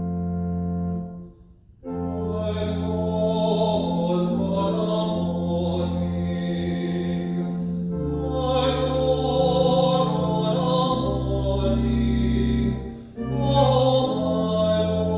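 Organ holding sustained chords; after a short break about two seconds in, voices sing with the organ accompaniment, pausing briefly near the end.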